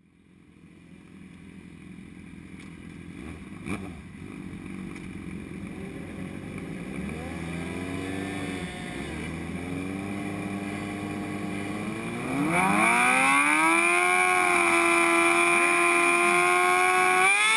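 Racing motorcycle engines on a start grid, ticking over and revving lightly. About two-thirds in, the onboard 2007 Honda CBR600RR's inline-four is brought up to high revs and held there steadily for several seconds, as a rider does waiting for the race start. Right at the end the revs climb again.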